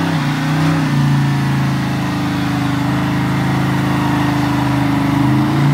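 LS3 V8 in a 1966 Ford F100 held at high revs through a burnout, rear tyre spinning. The engine note climbs in the first second, then holds steady.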